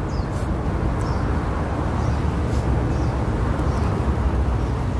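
Steady low rumble of outdoor background noise, such as wind on the microphone or distant traffic, with a few short faint ticks.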